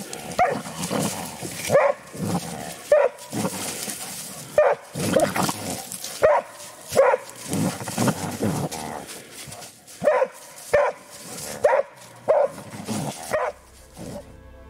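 Hunting dog barking at a badger it has found in the bushes, holding it at bay. The barks come short and sharp in an uneven run, one or two a second.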